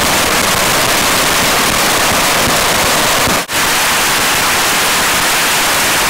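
A dense, unbroken rushing roar of massed firework rockets and firecrackers going off all at once, as at a beehive firework barrage. It drops out for an instant about halfway through, then carries on as before.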